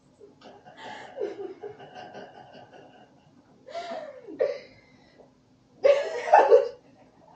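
Girls laughing in short bursts that come and go, the loudest near the end.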